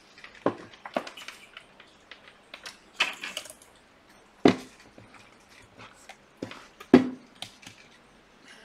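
Knocks and clicks of tools handled on a wooden workbench as a multimeter and its test leads are picked up and set down beside an opened laptop. The knocks are scattered, with the two loudest about halfway through and a couple of seconds later.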